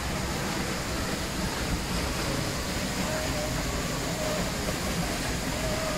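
Peričnik waterfall's column of water pouring onto the rocks at its foot, a steady, even rush heard close up.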